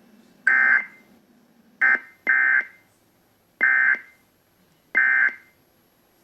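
Emergency Alert System end-of-message data tones: five short electronic bursts, each about a third of a second long, coming at uneven intervals and signalling the end of the alert.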